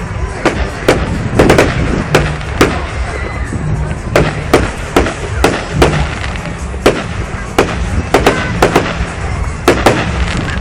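Fireworks display going off: a rapid, irregular run of sharp bangs and pops, about two or three a second, over a steady low rumble.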